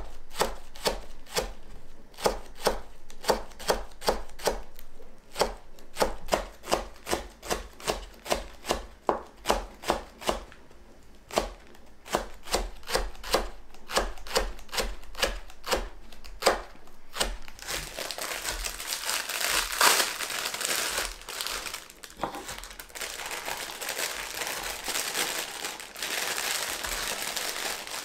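A kitchen knife slicing a green onion on a wooden cutting board: steady knocks of the blade meeting the board, about two to three a second. About two-thirds of the way in, this gives way to the continuous crinkling of a plastic bag of bean sprouts being handled and emptied.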